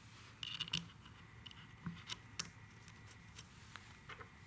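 Scattered light clicks and taps of metal parts being handled as the top of a cutaway rotary compressor is fitted back on, with a small cluster about half a second in and a sharper click a little past two seconds.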